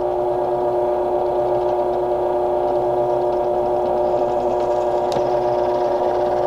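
Benchtop drill press motor running with a steady hum while a 5/32 bit drills a hole into a rocket body tube, with a brief tick about five seconds in.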